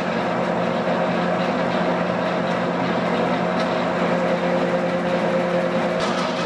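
DoAll C-1212A automatic metal-cutting bandsaw running, a steady machine hum with several held tones; its sound shifts slightly about six seconds in.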